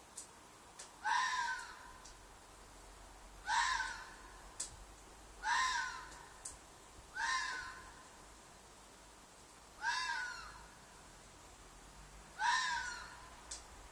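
Red fox screaming: six short, harsh shrieks, each bending down in pitch, repeated every couple of seconds at an uneven pace.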